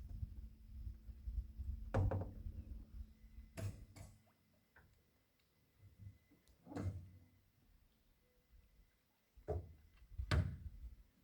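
A series of irregular dull knocks and thumps, about six, with a low rumble under the first few seconds.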